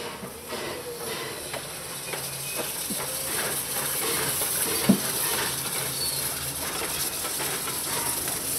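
Replica Central Pacific 4-4-0 steam locomotive Leviathan moving slowly past, with a steady hiss of steam that grows louder as it draws nearer. A single sharp knock about five seconds in is the loudest sound.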